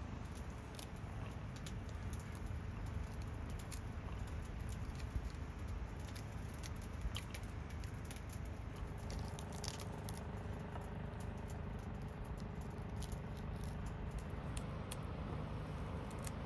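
Pomegranate being broken apart by hand, with small irregular crackles and clicks as the peel and membranes tear and the arils are pried loose into a wooden bowl.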